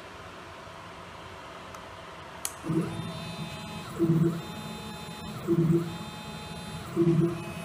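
A sharp click, then 1600 oz-in stepper motors on DM860A drivers moving in short bursts about every second and a half, four times. Each move is a pitched hum, with a thin high tone in between.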